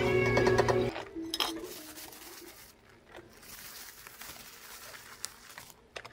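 Background music ends about a second in. Then stacks of clear plastic cups and lids are handled and pushed into a holder, with light plastic clicks, clinks and rustling.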